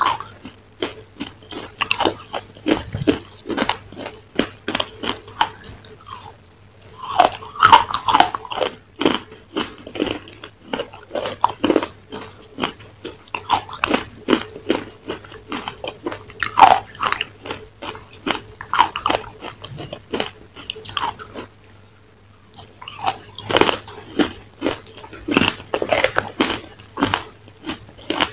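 Close-miked crunching and chewing of crumbly food: rapid crisp crackles and bites in clusters, with short lulls about six seconds in and again a little past twenty seconds.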